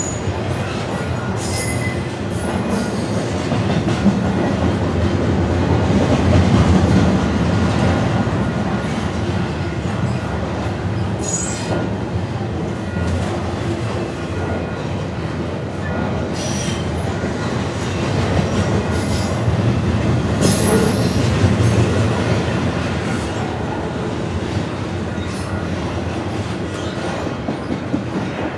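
Double-stack intermodal freight train of container well cars rolling past alongside, heard from inside a city bus: a steady rumble of wheels on the rails, with a few brief high squeals.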